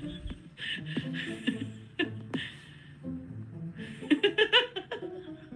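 A woman laughing in bursts over background music, the laughter loudest about four seconds in.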